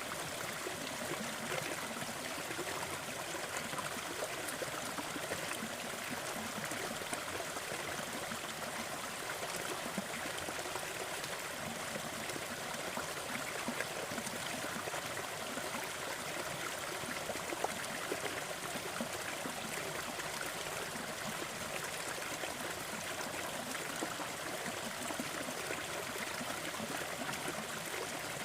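Gentle waterfall splashing and trickling steadily, an even rush of water with small scattered splashes.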